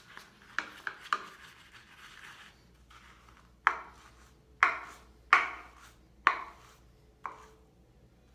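Synthetic shaving brush knocking and swishing against the inside of a wooden bowl while whipping shaving lather. A few light knocks and a soft swishing come first, then four loud sharp knocks about a second apart and a lighter one near the end.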